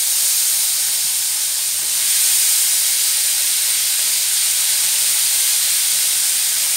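Shrimp frying in hot butter in a pan: a loud, steady sizzle that swells slightly about two seconds in as more shrimp go in.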